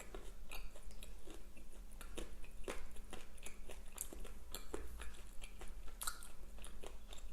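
Close-miked chewing of fast food, with many small, irregular mouth clicks.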